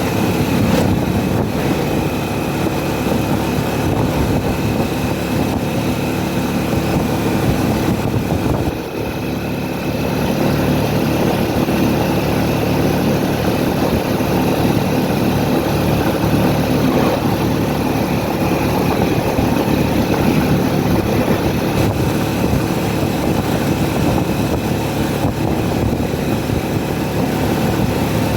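Steady engine and road noise of a vehicle travelling, a low hum with a brief dip about nine seconds in.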